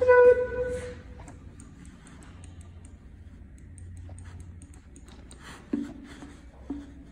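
Otis lift's chime: a single loud ding that rings out and fades over about a second, over the low hum of the lift. It is followed by faint, rapid high ticking, and near the end two short low tones.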